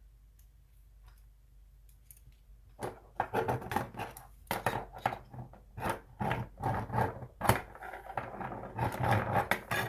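Repeated scratching strokes of a steel caliper jaw scribing a layout line into marker-inked metal, starting about three seconds in and going on in quick, irregular strokes.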